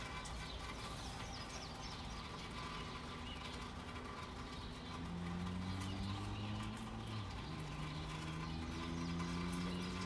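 City-morning ambience: steady rain hiss with birds chirping. About halfway in, a car engine comes up with a low hum whose pitch slowly rises.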